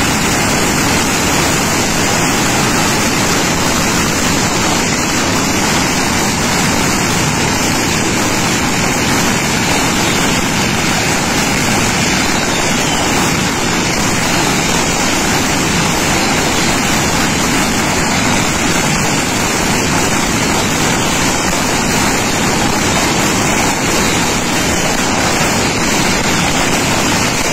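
Stock of firecrackers exploding in a burning fireworks stall, so many small bangs that they merge into one steady, unbroken crackle with no single blast standing out.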